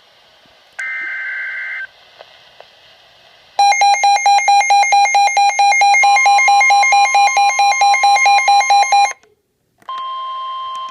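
NOAA weather radio receiving a new EAS alert: a second-long burst of the SAME data tones near the start, then, from about three and a half seconds in, the radio's own rapid beeping alarm at about four beeps a second for five seconds, with the steady NWS warning alarm tone joining it halfway through. After a brief gap, the steady warning tone sounds alone near the end.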